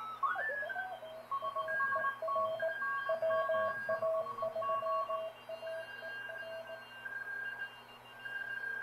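Morse code (CW) signals received on a homebuilt Wheatstone-bridge regenerative receiver tuned to the 40-meter band. At the start the tones glide in pitch as the tuning knob turns, then several stations beep at once at different pitches. Several signals come through together because the regen's selectivity is limited.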